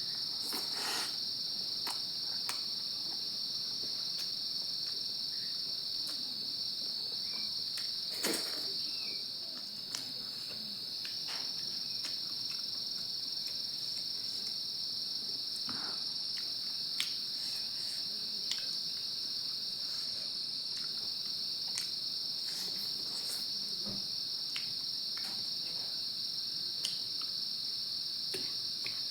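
Crickets chirring: one steady, unbroken high-pitched trill, with scattered short clicks and taps over it.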